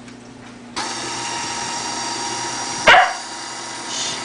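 KitchenAid stand mixer switching on with its food mill attachment: the motor starts about a second in and runs at a steady pitch. About two seconds later a single short, loud cry with a falling pitch cuts across it, like a dog's bark.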